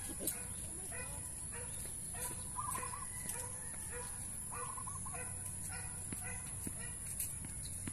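A bird calling in short, clucking notes, about two a second, a couple of them wavering in pitch. A few sharp knocks of tennis balls struck by rackets, the loudest just after the start.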